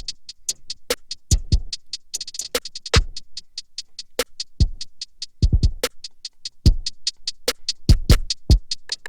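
Programmed drum pattern looping from Native Instruments Maschine: deep kicks, snare hits and rapid closed hi-hats, about six or seven ticks a second.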